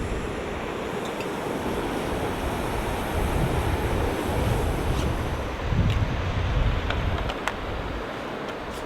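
Blizzard wind blowing hard. It swells in gusts through the middle and buffets the microphone with a low rumble, and a few faint ticks come through.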